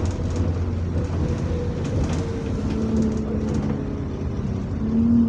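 Diesel bus engine and road noise heard from inside the moving bus: a steady low hum with a held tone that comes in about halfway and grows louder near the end. The bus is one with a turbo leak.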